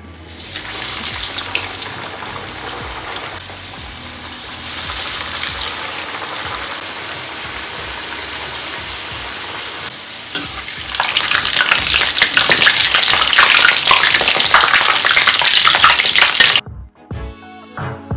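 Breaded potato cheese balls deep-frying in hot oil in an iron kadai, the oil sizzling steadily. The sizzle swells as more balls go in, is loudest in the last few seconds, then cuts off suddenly near the end.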